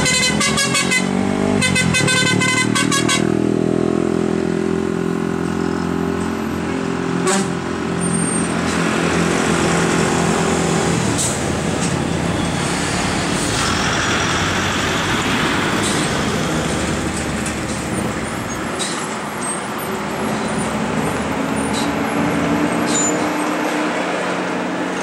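Diesel engines of heavy lorries and a TNSTC bus running under load as they crawl round a tight hairpin bend. A horn sounds in two quick pulsing bursts in the first three seconds, and a few short air-brake hisses follow later.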